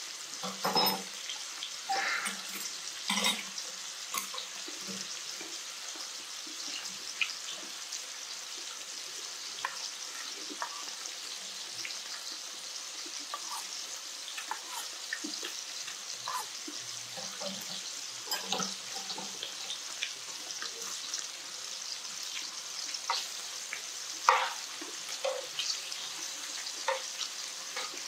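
Sliced duck sizzling in a frying pan as a steady hiss, with scattered short clicks and taps over it.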